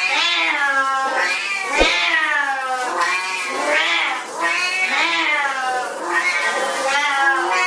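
Siamese cats meowing loudly in long, drawn-out calls, one after another at about one a second.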